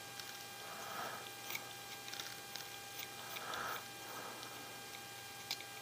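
A 1.5 mm hex driver turning small screws out of an RC crawler's axle housing: faint scraping three times, with a few light clicks of small parts, over a steady electrical hum.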